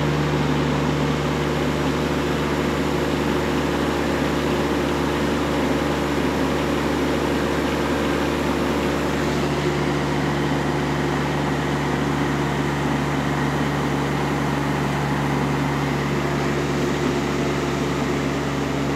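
John Deere garden tractor's engine running steadily at a constant speed, a loud even hum.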